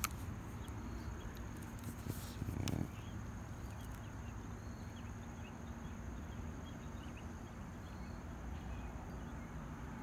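Faint outdoor background by a creek: a low steady rumble with a few faint high chirps, broken by a brief rustle about two and a half seconds in.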